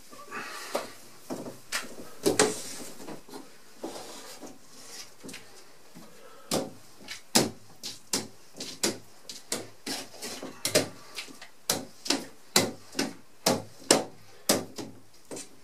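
Wet, soapy window glass scrubbed with a scrub pad, then scraped with a 6-inch razor blade scraper. From about six seconds in, the scraper's strokes come as a quick run of short, sharp scrapes, roughly two a second.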